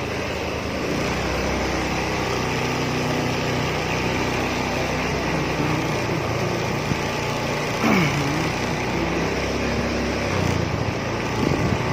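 Engine noise of slow-moving vehicles, a steady low hum. About eight seconds in there is a brief louder sound whose pitch dips and then rises again.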